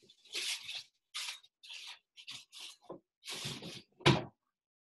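Handling noises during kitchen prep: a run of short rustling, rubbing sounds, about six in four seconds, then a louder thump about four seconds in.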